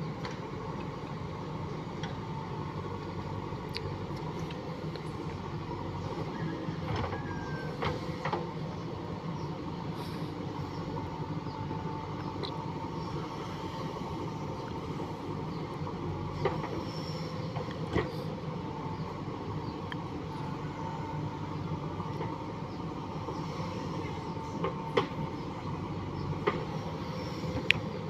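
Diesel engine of a JCB 3DX backhoe loader running steadily while it works, with a few sharp knocks scattered through.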